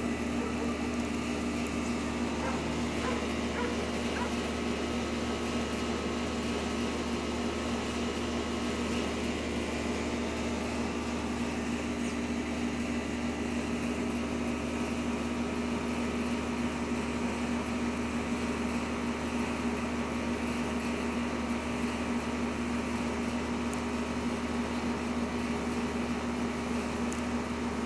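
Steady machine hum with a low drone and a few fixed tones, unchanging at a constant level.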